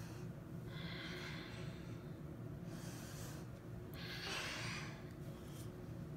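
A child breathing deeply during a yoga breathing exercise: three audible, hissy breaths, each under a second long, over a steady low room hum.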